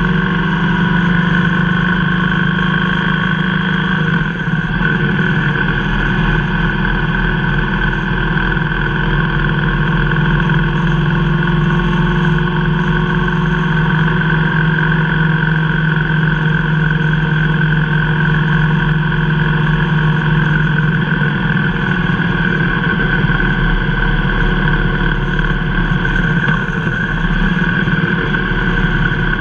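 Motorcycle engine running steadily at cruising speed, heard from the rider's seat.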